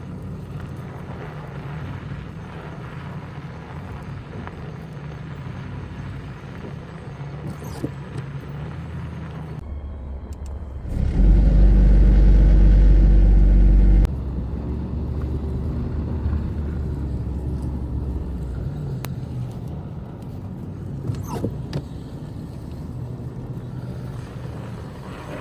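Truck engine running steadily, with a much louder deep rumble for about three seconds midway.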